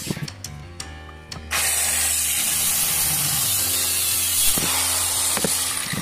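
Handheld electric circular saw cutting through a wooden plank. The blade's steady, high hissing cut starts abruptly about a second and a half in.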